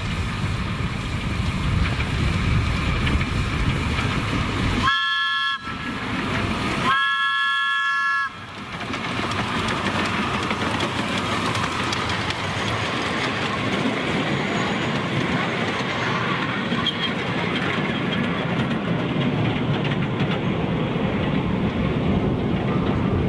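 15-inch gauge 4-4-2 steam locomotive running past with its train of riding cars, wheels clacking on the rail joints. Its multi-tone whistle sounds twice: a short blast about five seconds in, then a longer one about seven seconds in.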